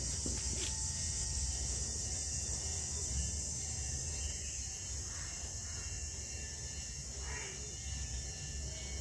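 Steady high-pitched chorus of insects chirring, with a low rumble underneath and a few faint soft noises.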